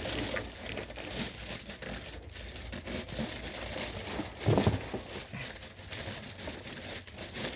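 Stiff plastic packaging being handled and crinkled, with scattered small clicks and one louder handling bump about halfway through.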